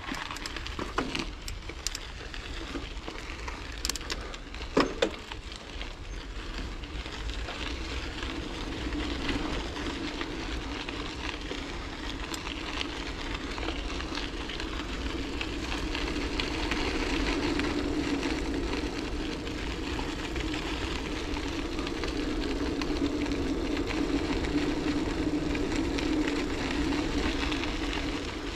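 Bicycle riding along a path, heard from the rider: steady rolling tyre noise with a low rumble, growing louder after the first several seconds. A few sharp clicks and knocks come in the first five seconds.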